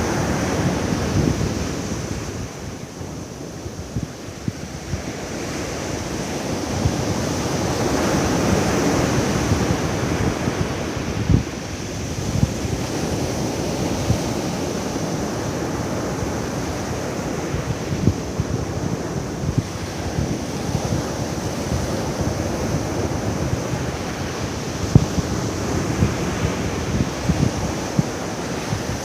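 Surf breaking on a beach, swelling and easing every several seconds, with wind buffeting the microphone in short knocks.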